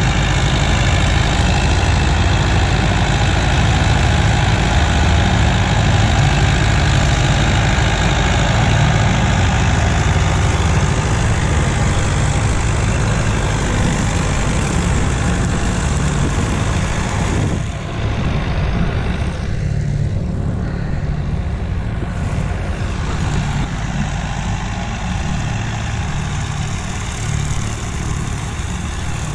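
Heavy engine running steadily and loudly, with a brief dip in level about 18 seconds in.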